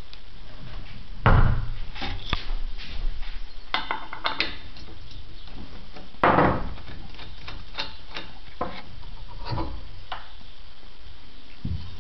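Irregular knocks, clicks and clanks of steel parts being handled on a handmade steel scale model of a Ferrari 312 PB racing car, as its rear stand is moved and a tool is worked at a wheel's centre nut. The two loudest knocks come about a second in and about six seconds in, with lighter clicks between and after.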